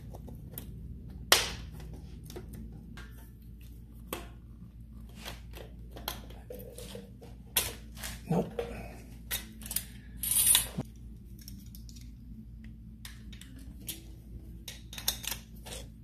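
Metal clicks, taps and scrapes from a hand-held Model T valve spring compressor and valve spring parts being worked into place in the side-valve chamber of an engine block. Scattered single clicks, a loud one about a second in, a busier run of clicks with a longer scrape around ten seconds in, over a steady low hum.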